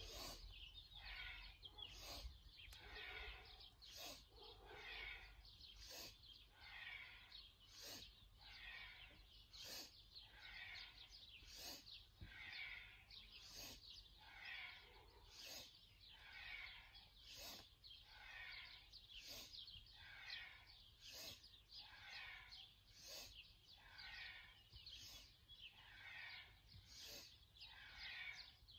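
Near silence with faint birdsong in the background, and a soft sound that recurs about every two seconds.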